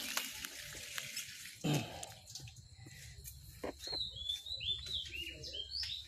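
A single knock, then a quick run of short, high chirps, each falling in pitch, in the second half.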